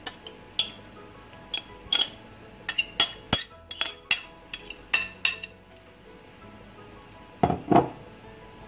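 A metal spoon clinking and scraping against a glass bowl as cooked minced meat is spooned out, a quick irregular run of sharp clinks over the first five seconds, then two duller knocks near the end.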